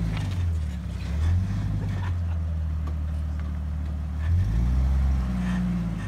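Jeep's engine running at low revs under load as it crawls over boulders, with the revs rising briefly about a second in and again a little past four seconds.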